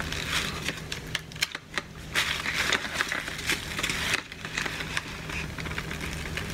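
Plastic packaging crinkling and crackling as it is handled and unwrapped, in irregular rustles and clicks with a brief lull about one and a half seconds in.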